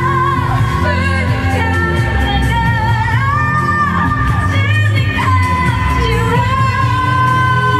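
A pop song sung into microphones over backing music, with long held notes.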